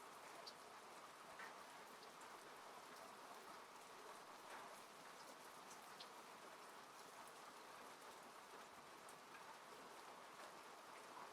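Rain falling steadily on a car, heard from inside as a soft, even hiss. Single drops tick sharply now and then.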